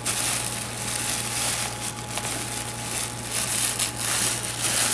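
Crinkling and rustling of wrapping as a bundle is pulled open by hand: a steady run of small irregular crackles.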